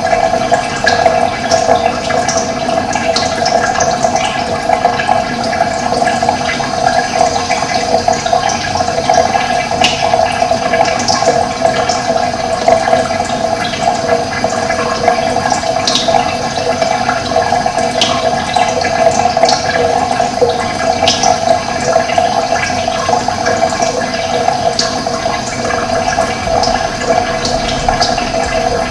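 Steady running water, with short bird chirps here and there.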